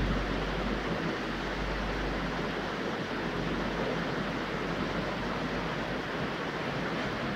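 Steady, even hiss of background noise, with no distinct handling clicks of the beads.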